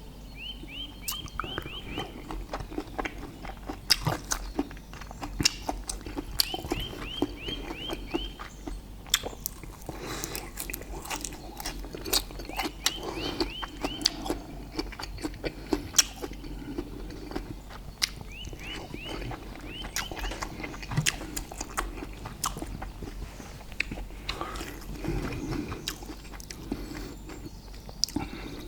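Close-up eating sounds: chewing with frequent wet mouth clicks and smacks. In the background, a short run of high chirps repeats about every six seconds.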